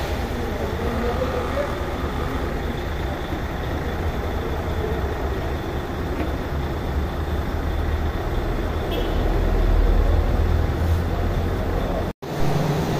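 Steady low rumble of a heavy vehicle's engine running, swelling louder about nine seconds in, with faint voices in the background. The sound cuts out for an instant near the end.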